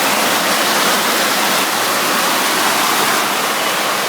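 Heavy hail pelting down in a dense, steady, loud rush of countless impacts, mixed with heavy rain.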